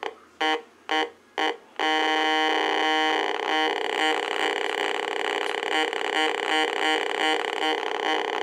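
Heathkit GD-1190 metal detector sounding its detection tone as a silver quarter is passed over the search coil: three short beeps, then a long buzzy tone that wavers and flutters.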